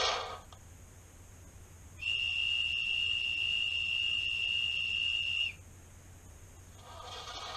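Model railway sound effect: one steady, high-pitched whistle that starts about two seconds in, holds a single pitch for about three and a half seconds, then cuts off.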